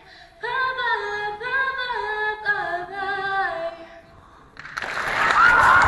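A female voice singing unaccompanied, a few long held notes, stopping about three and a half seconds in; about a second later an audience breaks into loud cheering and shouting.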